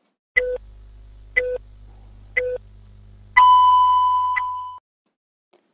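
Countdown-timer sound effect: three short beeps a second apart, then a longer, higher-pitched tone, all over a low hum that stops with the last tone.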